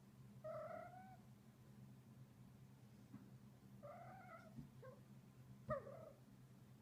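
Munchkin cat trilling as he plays: two short chirping trills that glide slightly upward, a few seconds apart, then a few shorter chirps. A sharp tap comes with the last chirp and is the loudest sound.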